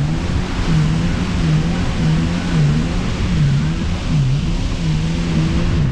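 Jet ski engine running at speed, its pitch rising and dipping about once a second, over a steady rush of wind and water.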